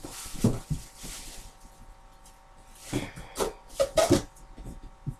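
Cardboard TV box and its packing being handled: a rustle and scrape at the start, then a few sharp knocks and scrapes about three to four seconds in.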